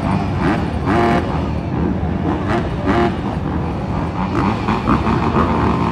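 Several 250cc motocross bike engines running and revving together, their pitch repeatedly rising and falling, with spectator voices mixed in.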